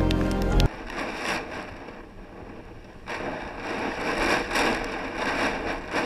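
Hurricane-force wind gusting and buffeting the microphone, rising and falling every second or so. In the first moment, music cuts off.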